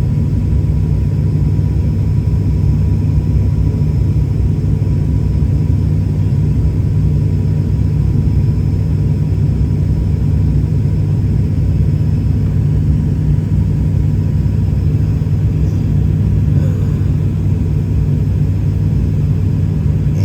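Steady low rumble of an airliner's cabin in flight, engine and airflow noise as the plane comes in to land.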